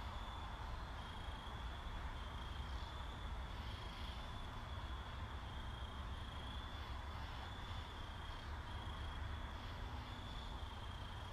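Insects trilling: a steady high-pitched trill with short breaks, over a constant low rumble.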